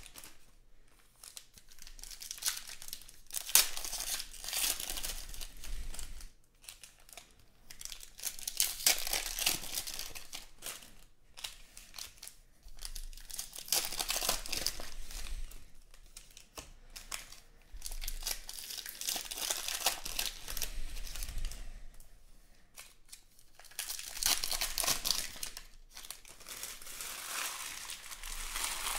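Foil wrappers of Panini Stars and Stripes baseball card packs being torn open and crinkled by hand, in repeated bursts every two seconds or so with short quiet gaps between.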